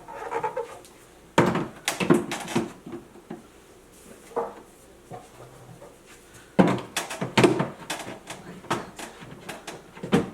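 Items being set back onto refrigerator shelves: a series of clinks and knocks, a few at first and then a quick run of them over the last few seconds.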